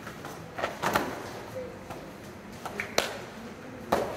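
A few sharp slaps and thuds of bare feet and bodies on a foam mat during karate sparring, the loudest just before the end as a fighter is thrown down onto the mat.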